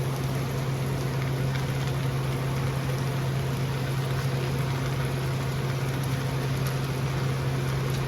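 Cubed steak and onions sizzling steadily in an oiled cast iron pan, over a constant low hum.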